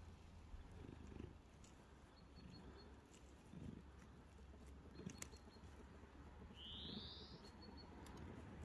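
Tabby cat purring faintly, a soft low rumble that swells with each breath about every second and a half. A short rising chirp sounds once near the end.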